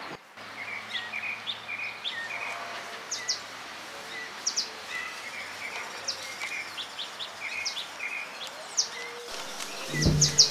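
Small birds chirping repeatedly in short, high calls over faint outdoor background noise. Music starts near the end.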